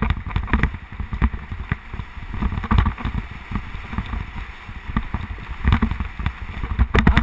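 Mountain bike descending a rough dirt track at speed: tyres rolling over dirt and stones, with the bike rattling and knocking over the bumps and wind rushing on the microphone.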